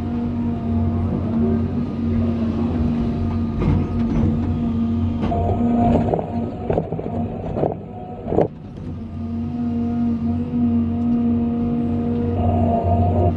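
John Deere 350D excavator's diesel engine and hydraulics running steadily under load, heard from inside the cab. Midway, several sharp knocks and scrapes as the bucket digs into the pit run gravel, with a brief drop in engine sound.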